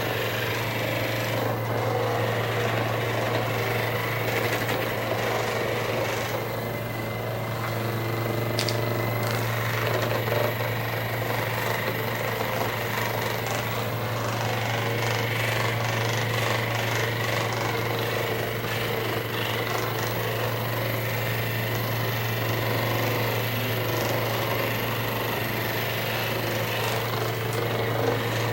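A handheld electric percussion massager running steadily, a rapid hammering buzz worked over the shoulder muscles.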